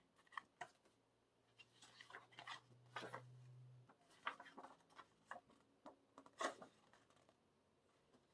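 Faint rustling and light taps of paper and card as an album's lyric booklet and inserts are handled, with a few louder rustles about four and six and a half seconds in. A faint steady low hum runs from about one to four seconds in.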